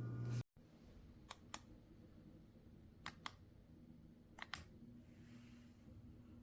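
A steady low hum cuts off suddenly about half a second in. Then come three pairs of sharp clicks, each pair a quick double click, spaced about a second and a half apart, over a faint steady background.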